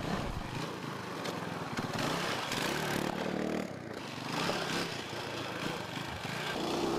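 Off-road motorcycle engine running and being revved on a dirt track. Its pitch climbs about two to three seconds in and again near the end.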